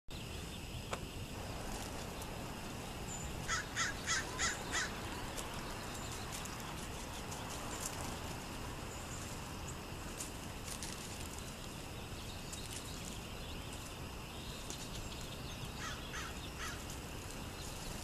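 A corvid, crow or jay, calling in a quick run of five loud calls about three and a half seconds in, and three weaker calls near the end. Scattered high chirps of small birds run under a steady outdoor hiss.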